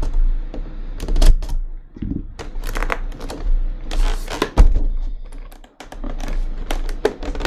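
Stiff plastic packaging being handled and pried at, giving irregular clicks and crackling.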